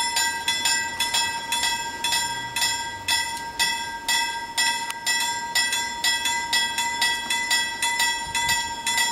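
Railway warning bell ringing, struck about twice a second, its ringing notes running together into a steady tone: the warning for an approaching train.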